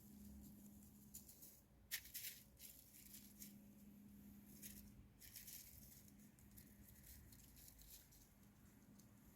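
Faint crackling of a wood fire: irregular small crackles and snaps, the sharpest about two seconds in, over a faint low hum.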